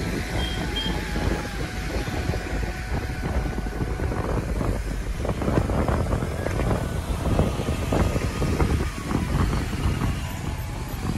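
Inside a moving bus: steady engine and road noise, with frequent short rattles of the bus body, busiest in the middle.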